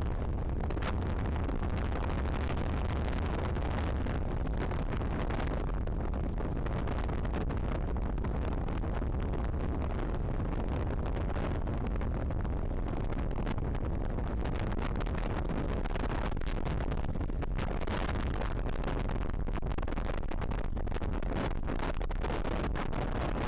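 Strong wind, over 22 knots, buffeting the microphone aboard a racing sailboat: a steady low rumble of noise, with a few sharper gusts in the second half.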